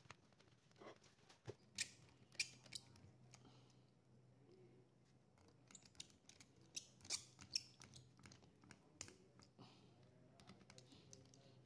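Scattered small clicks and ticks of a precision screwdriver on the metal hinge-bracket screws of a Dell Inspiron 5391 laptop, with a few sharper clicks from the tool and small parts being handled.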